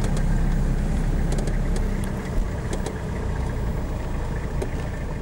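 Car engine and tyres heard from inside the cabin while driving over a rough dirt track: a steady low rumble with scattered rattles and clicks, and one knock about two and a half seconds in, after which it runs a little quieter.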